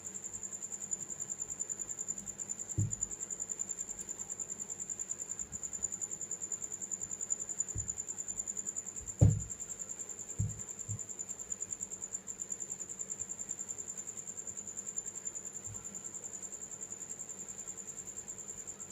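A steady, high-pitched, rapidly pulsing trill, like a cricket's, with a few soft low knocks from handling the fan wiring, the loudest about nine seconds in.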